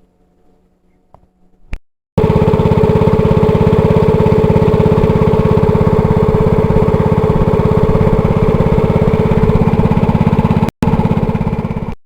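Small engine running steadily, very loud and close, with a fast even pulse. It cuts in abruptly about two seconds in and drops out for a moment near the end.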